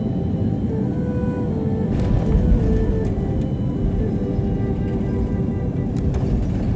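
Airbus A330-300 cabin noise during the landing roll: a heavy rumble of wheels on the runway and engine noise, growing louder about two seconds in, with a few brief knocks. Quiet background music runs over it.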